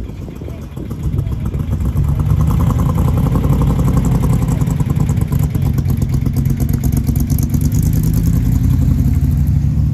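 Deep, loud engine rumble of a Cobra-replica roadster pulling away and driving slowly past, rising about a second in and then holding steady.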